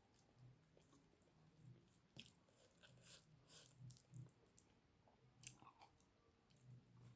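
Faint close-miked chewing of soft food, with a jaw rhythm of about two chews a second and a few wet lip-and-mouth smacks.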